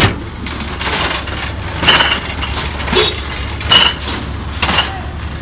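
Empty glass beer bottles rattling and clinking in a wire shopping cart as it is pushed over a concrete sidewalk, in clattering jolts about once a second, with a sharp knock at the start.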